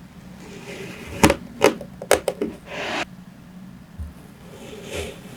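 Kinetic sand being cut and scraped with a tool: a run of sharp clicks and taps, then a short gritty scrape about three seconds in, with a faint scrape again near the end.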